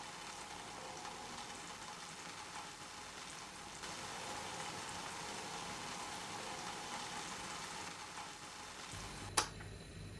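Beef bone broth boiling in a clay pot, a steady bubbling sizzle. Near the end a single sharp click as the portable gas stove's control knob is turned.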